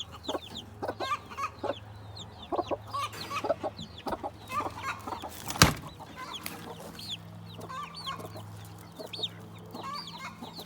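Chickens clucking, with many short high chirps scattered throughout. A single sharp knock comes about five and a half seconds in, over a steady low hum.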